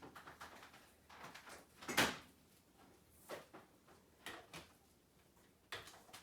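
Power cord of a Sanitaire SC889A upright vacuum being unwound from its cord hooks by hand: scattered rustling and plastic clicks and knocks, with one sharper knock about two seconds in.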